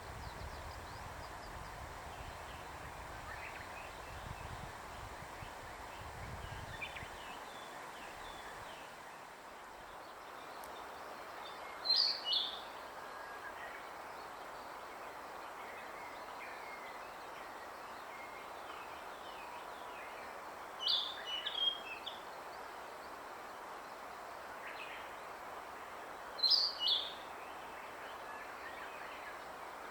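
Wild birds calling over a steady background hiss: one bird gives a loud, short two-note call three times, with fainter chirps from others between. A low rumble fades out in the first several seconds.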